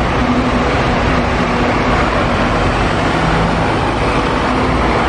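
Bus engine running with road noise: a steady, loud rumble with a low hum.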